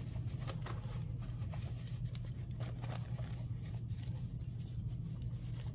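Faint rustling and scratching of a small fabric zippered pouch being turned right side out by hand, with scattered soft clicks, over a steady low hum.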